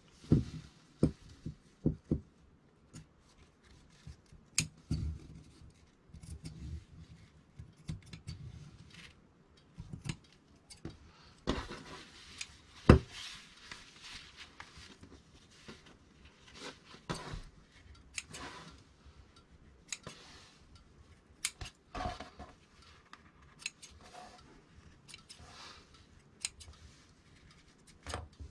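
Fabric shears snipping the tailor's-tack threads between two layers of jacket fabric, in irregular sharp snips, with fabric rustling as the layers are pulled apart.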